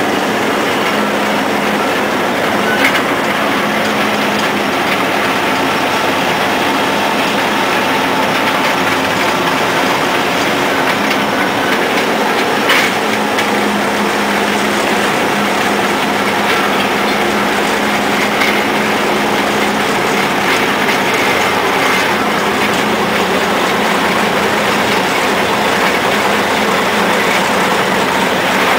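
1930 Moore Speedcrane model 1500 running, heard onboard: its Cummins diesel engine runs steadily under the clatter of its open gear train and drums turning. A couple of sharp knocks come through, about 3 s and 13 s in.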